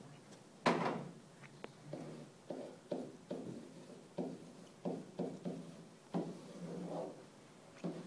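Dull knocks and taps of a pen against an interactive whiteboard as it is written on: a sharp knock near the start, then irregular softer knocks about one or two a second.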